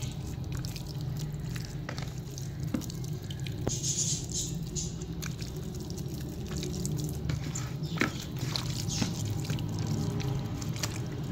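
Wet squelching and smacking of a hand kneading a thick, lemon-moistened spice paste into raw fish pieces in a plastic tub, with many small irregular clicks, over a steady low hum.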